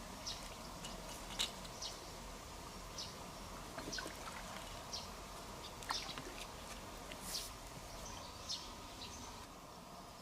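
Quiet outdoor ambience with scattered short, high bird chirps and a few faint clicks over a low steady background.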